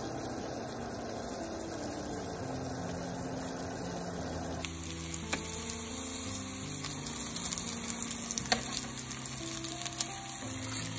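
Sugar syrup bubbling at a boil in a steel pot, then, after a cut about four and a half seconds in, stuffed qatayef frying and crackling in oil in a nonstick pan, with a few sharp clicks of metal tongs as they are turned. Soft background music plays throughout.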